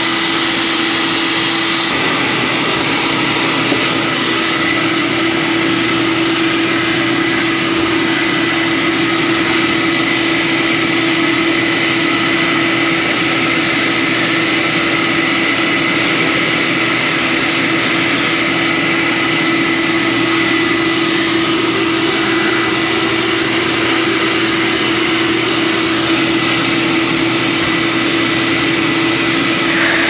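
Vacuum cleaner running steadily, its hose attachment sucking dust from around a refrigerator's compressor and condenser fan: a constant rush of air with a steady motor whine.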